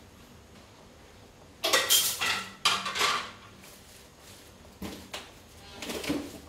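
Metal kitchenware clattering: two loud bursts of clanks about two seconds in, then two softer ones near the end.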